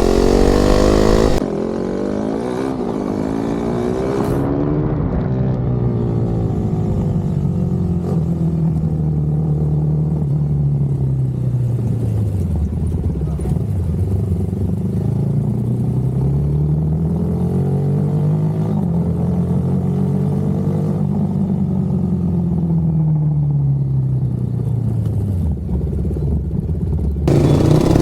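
KTM RC390's single-cylinder engine under way, its pitch rising and falling again and again as the throttle opens and closes. A loud rushing noise covers it for the first second and a half and again near the end.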